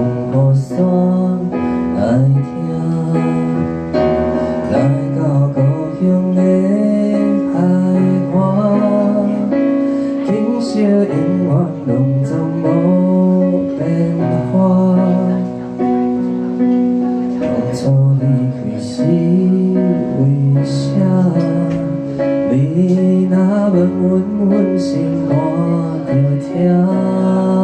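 A man singing live to his own piano-sound accompaniment on a Korg electronic keyboard, sustained chords under a slow sung melody.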